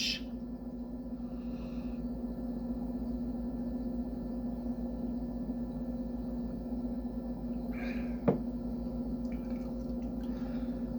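A steady hum with a clear low tone, and one sharp click about eight seconds in.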